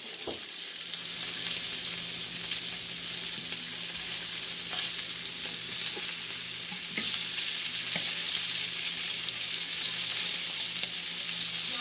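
Hot dogs frying in a large skillet, a steady sizzle, with a few light clicks as a fork turns them against the pan.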